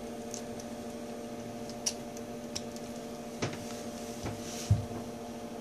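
Steady low electrical hum, with a few faint clicks and a soft thump from a smartphone being handled.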